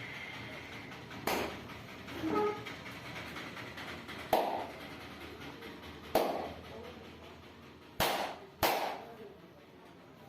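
Sharp hand slaps struck during a massage: five loud smacks a second or two apart, the last two in quick succession near the end.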